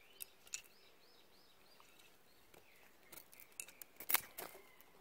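Knife blade cutting into a thin wooden branch: a couple of sharp snicks about half a second in, then a quick run of cuts in the last two seconds, the loudest just after four seconds in. A bird chirps a short series of repeated notes about a second in.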